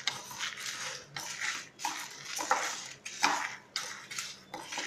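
A wooden spatula stirring dry toor dal and horse gram round a pan, the lentils rustling and scraping in a swish roughly every half second as they dry-roast without oil.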